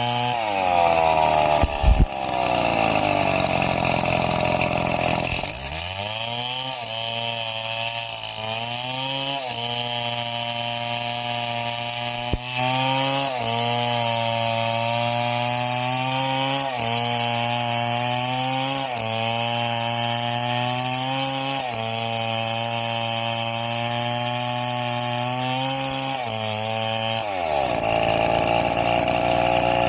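Chainsaw cutting wood. The engine runs at high revs, then over and over, every second or two, its pitch drops as the chain takes the load and climbs back, before it revs freely again near the end. A short knock sounds about two seconds in.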